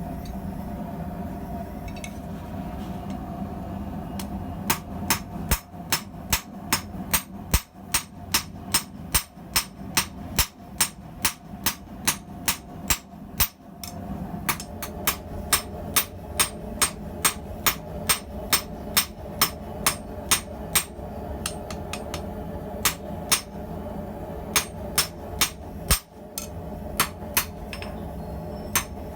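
Hand hammer striking hot steel on an anvil while forging blacksmith's tongs, a long run of ringing blows at about two a second with a couple of short pauses, over a steady hum.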